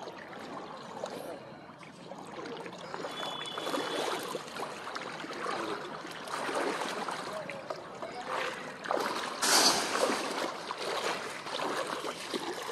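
Shallow floodwater splashing and sloshing as a motorcycle is pushed through it and feet wade alongside, with a louder splash about nine and a half seconds in.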